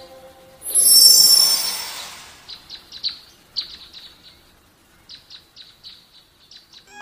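Logo-intro sound effects: a loud whoosh with a high shimmering ring about a second in, fading over the next second or two, followed by repeated short bird chirps.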